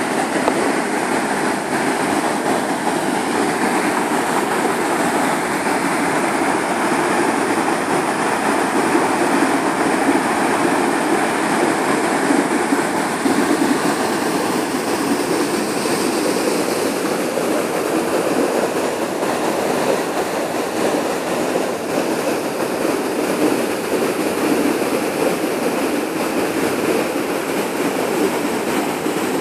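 Water pouring over a concrete dam spillway and churning as white water in the chute below: a loud, steady rush.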